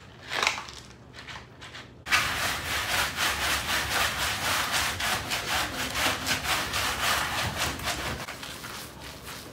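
Bristled silicone bath gloves scrubbing shampoo lather into a wet dog's coat in quick, even rubbing strokes. The scrubbing starts suddenly about two seconds in and eases off near the end.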